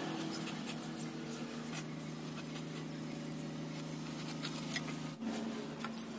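Raw jackfruit being cut on a boti, a curved blade fixed to a wooden base: short, irregular scratchy strokes as the blade slices and scrapes through the rind and firm flesh. A steady low hum sits beneath.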